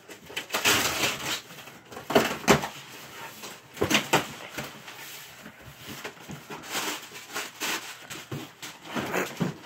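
Cardboard shipping box being opened by hand: packing tape pulled off and flaps lifted, then plastic packing crinkling as it is taken out, in irregular bursts of ripping and rustling.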